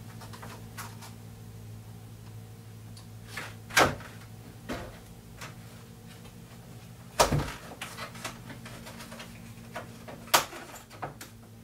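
Handling noise at a plastic tool case: a card insert in the lid being lifted and let fall back, and fingers tapping on it. Three sharp knocks stand out, about four seconds in, about seven seconds in and near the end, with smaller taps between, over a steady low hum.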